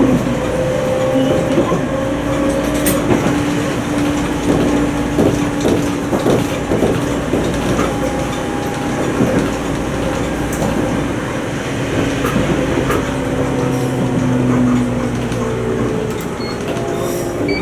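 Toyama Chihō Railway 20020 series electric train (ex-Seibu 10000 series New Red Arrow) running along the line: a steady drive hum with slight shifts in pitch over the rumble of the wheels, and scattered clicks of the wheels over the track.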